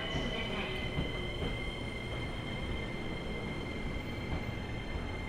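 Train rumbling on the rails with a steady, high-pitched wheel squeal; the upper squeal tone fades in the first second or two while the rumble carries on.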